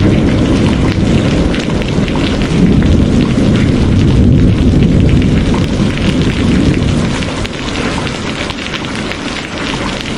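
Heavy rain pouring down, a dense patter of drops over a deep low rumble. The rumble fades in the last few seconds.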